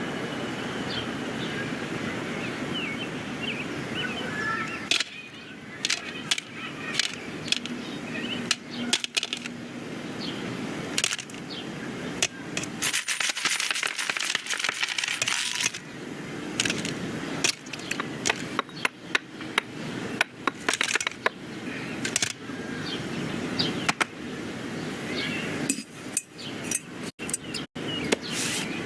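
Film sound-effects track with no dialogue or music: a run of scattered clicks, knocks and handling noises over a steady background, with a louder rushing noise lasting a few seconds around the middle.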